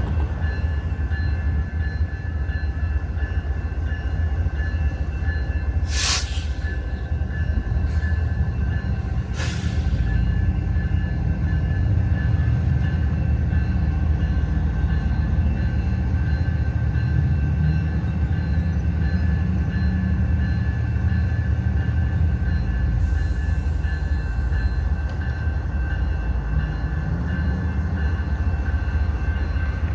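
Freight train cars rolling past, a steady low rumble with a thin, steady whine above it. There are three sharp knocks about six, eight and nine and a half seconds in.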